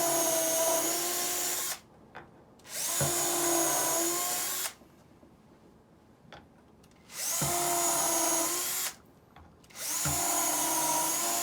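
Electric drill drilling holes, running in four bursts of about two seconds with short pauses between them. Each burst starts with a rising whine as the motor spins up, then runs at a steady pitch.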